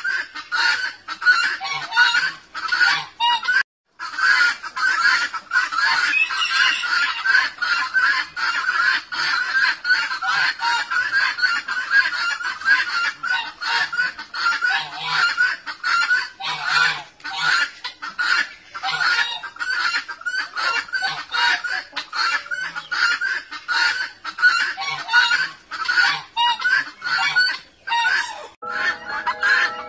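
Guineafowl calling in a flock: a dense, continuous run of rapid, harsh, repeated cackles, broken by a short gap about four seconds in.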